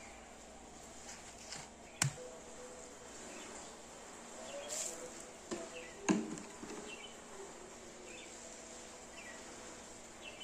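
Two sharp knocks about four seconds apart as freshly cast cement flower pots are handled, with faint chirps in the background.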